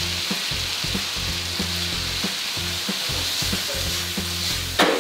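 Bamboo shoots and shredded pork sizzling steadily in a hot wok after a splash of water is added to the stir-fry. A sudden louder burst comes near the end as the wok is tossed.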